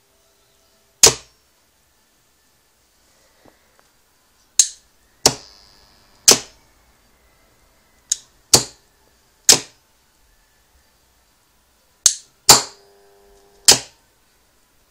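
Old electromagnetic contactor clacking shut and dropping out repeatedly as an inline cord switch is flicked on and off. There are about ten sharp clacks, several in pairs a fraction of a second apart. The contactor's coil is fed through a fluorescent-lamp glow starter, which delays its pull-in. After a couple of the clacks, a faint buzz hangs on briefly.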